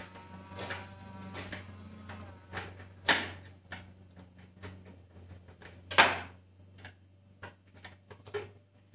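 Light clicks and knocks of a screwdriver working at the screws of a wooden piano music rack as it is handled, with two louder sharp knocks about three and six seconds in, over a steady low hum.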